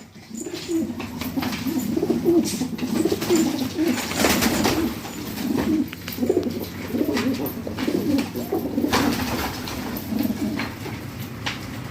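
Domestic pigeons cooing over and over, several low calls overlapping, with scattered sharp clicks.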